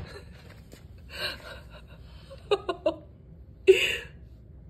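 A person's breathy gasps and a few short chuckles, with one loud sharp gasp near the end.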